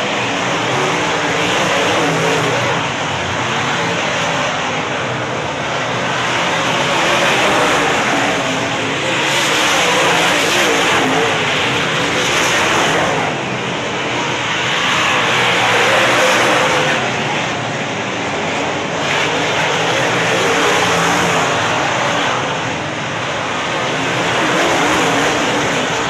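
A field of UMP dirt modified race cars, V8 engines running hard around a dirt oval. The engine noise swells and eases every few seconds as the cars pass close by.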